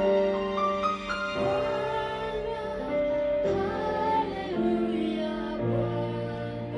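Electronic keyboard playing slow held worship chords, with voices singing along over it.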